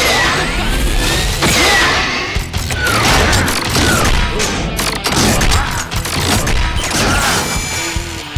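Cartoon action-scene sound effects: a dense run of crashes and thuds, with short falling tones about once a second, over background music.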